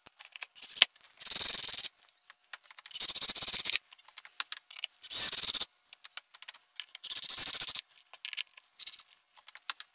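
Cordless drill driving screws through a plastic toilet flange adapter into the floor, in four short bursts of under a second each. Light clicks of the screws and parts being handled come between the bursts.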